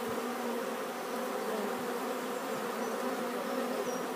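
Honeybees buzzing around their hives, a steady hum that holds level throughout.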